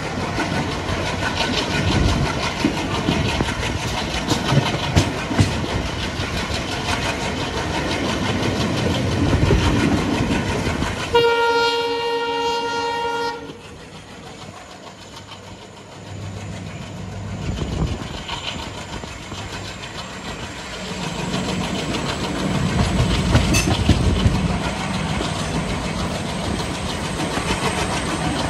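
ALCo WDM3D diesel locomotive's 16-cylinder engine chugging under power, with the wheels clattering over the rails. About eleven seconds in its horn sounds one steady blast for about two seconds, after which the engine goes quieter for a few seconds before building up again.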